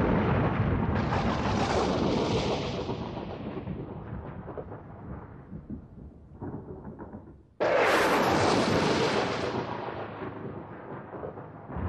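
Thunder: a long rumbling peal that fades slowly, a weaker rumble about six and a half seconds in, then a sudden loud thunderclap about seven and a half seconds in that rolls away over several seconds.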